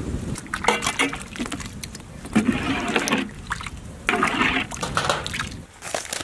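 Hands swishing and squelching goat intestines and tripe in water in a large aluminium pot while rubbing in turmeric paste. The splashing comes in uneven bursts, the two biggest about two and a half and four seconds in.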